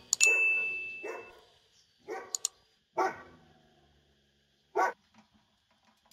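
A dog barking, about five short barks at uneven intervals, with a few sharp clicks in between.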